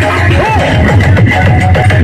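Loud electronic dance music with heavy deep bass and repeated falling bass sweeps, played through a large competition sound system.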